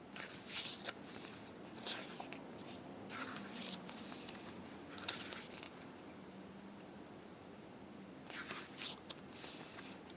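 Pages of a heavy photobook being turned by hand: several short papery swishes, each with a sharp flick.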